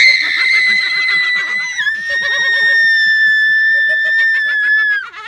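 A girl's long, high-pitched scream of fright, held for about five seconds and dropping slightly in pitch about two seconds in, with laughter from others underneath.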